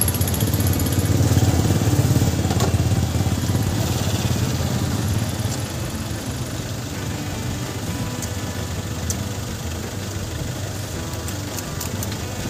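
An engine running steadily, a little louder for the first five seconds and then easing off somewhat. A few faint light clicks come near the end.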